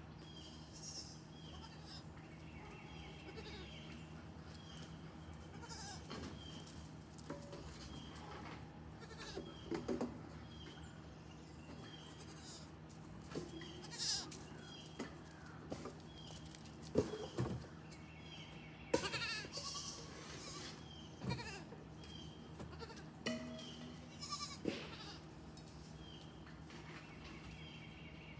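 Several goats bleating at feeding time: a dozen or so separate calls from different animals, some loud and close, over a steady low hum.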